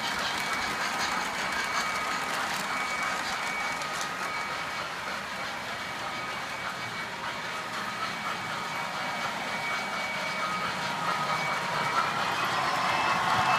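O-gauge model trains running on a layout: a steady motor whir with faint whining tones and light clicking of wheels on the track.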